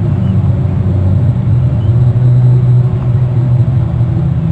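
Steady loud low rumble, engine-like, its pitch shifting slightly now and then, with a couple of faint short high chirps over it.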